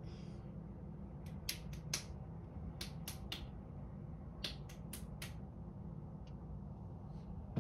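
Sharp clicks or taps, about a dozen in small irregular clusters, over a steady low hum.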